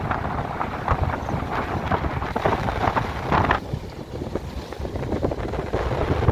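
Wind buffeting the microphone of a moving vehicle in uneven gusts, over a low road rumble.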